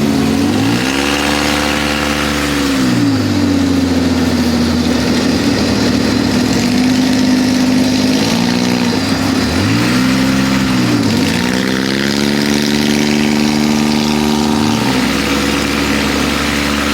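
ATV engine running and revving up and back down three times, with steady running at lower revs in between.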